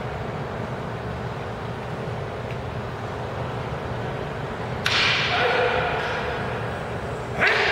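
Wooden practice swords (bokken) striking in a paired iaido kata: two sudden sharp cracks, about five seconds in and again near the end, each ringing on for about a second in the large hall.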